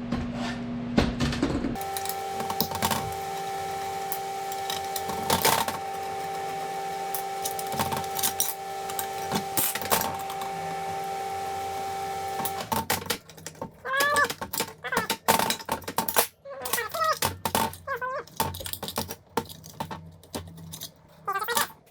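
Metal hand tools and small metal parts clicking and clattering in quick, irregular taps while bolts and parts are taken off a dirt bike. A steady hum runs under the clicks for the first half, and the clattering becomes denser after that.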